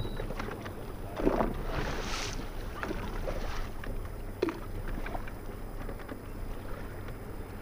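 Wind on the microphone and small waves lapping against a bass boat's hull, with a louder rush about a second in and a few light clicks.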